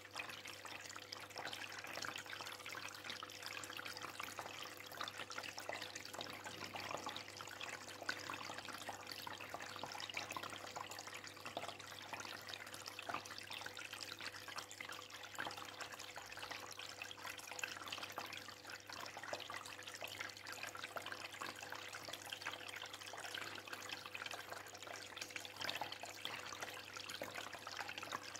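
Aquarium water trickling and bubbling steadily, full of tiny drips and splashes, over a low steady hum.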